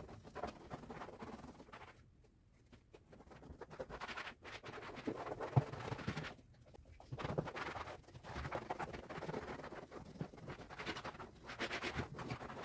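Light scratching, rubbing and small taps of hands at work with household cleaning, broken by a few short quieter pauses.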